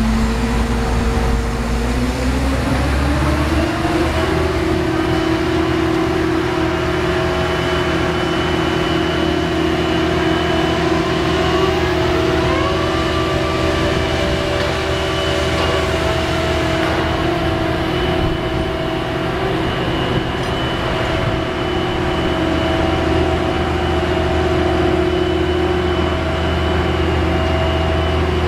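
Construction crane's engine speeding up over a couple of seconds near the start, then running steadily at raised revs under load.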